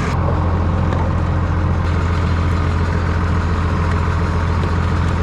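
Tractor engine idling steadily, a deep even drone that holds without change.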